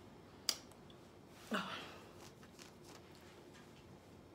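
A person eating cooked cabbage with her mouth closed: a sharp lip smack about half a second in, then a short hummed "mm" falling in pitch about a second and a half in.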